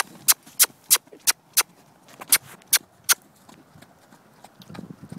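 A person clucking with the tongue in quick runs of sharp clicks, about three a second, with a pause in the middle. This is the clucking used to drive a horse on around a pen.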